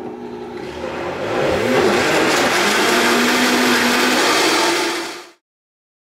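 Vitamix blender motor running on a smoothie of almond milk and frozen banana, speeding up over the first couple of seconds and then holding steady; the sound fades out about five seconds in.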